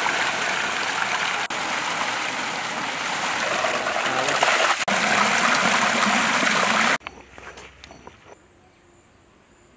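Water gushing from a pipe outlet and splashing through bamboo baskets into a shallow channel as vegetables are rinsed under it. The rushing stops abruptly about seven seconds in, leaving a much quieter stretch with a faint, steady high-pitched tone near the end.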